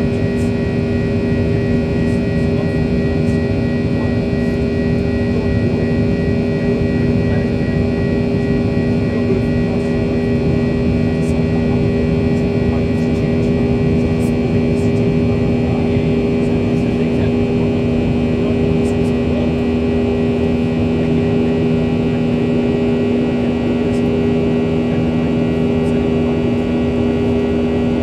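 Cabin noise of a Boeing 737-800 climbing after takeoff: its CFM56-7B turbofan engines and the rushing airflow make a loud, steady drone with two steady hum tones running through it.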